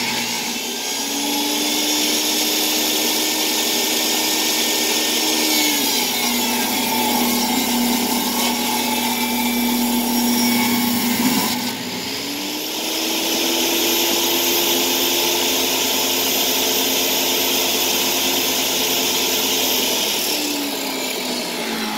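Table saw running and ripping a board lengthwise, the motor loaded by the cut and drawing about 20 amps. The cutting noise is heaviest in the second half, after a brief dip about eleven seconds in, and the sound winds down near the end.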